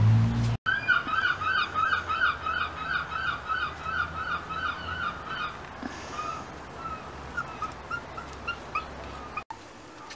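Rough collie puppy yapping in a quick, even run of high yelps, about three a second, turning fainter and more spaced out from about six seconds in.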